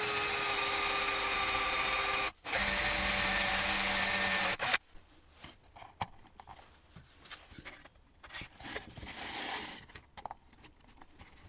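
Electric drill in a wooden drill-guide jig boring into a plywood board. The motor runs with a steady whine for about two seconds, stops briefly, runs for about two seconds more, then stops about four and a half seconds in. After that come faint clicks and rubbing as fingers handle the board.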